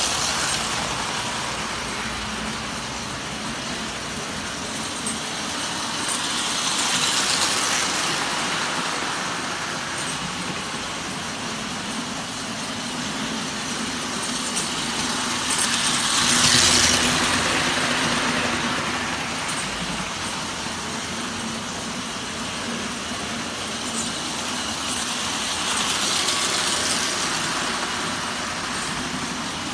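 Standard gauge tinplate toy train running laps on metal track: a steady rolling rumble and clatter of its wheels that swells each time the train passes close, roughly every eight to ten seconds.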